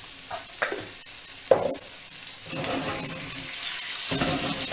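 Sliced bell peppers sizzling in hot oil in a frying pan with a steady hiss. They are being stirred, with a few sharp knocks of the utensil against the pan, the loudest about a second and a half in, and a busier clatter of stirring in the second half.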